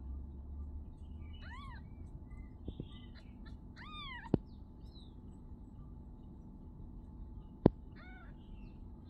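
Newborn kitten mewing: three short, high-pitched mews, each rising then falling, about a second and a half, four and eight seconds in. Two sharp clicks come between them, the louder one near the end.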